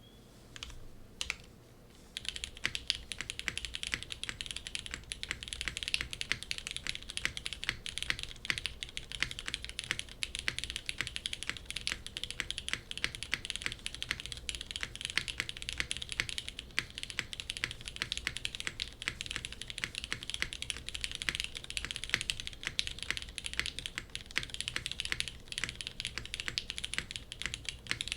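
Fast, continuous typing on a Geonworks F2-84 mechanical keyboard with an aluminium plate and lubed, broken-in Cherry MX Black linear switches under GMK keycaps. The clicks begin about two seconds in and run on as a dense patter.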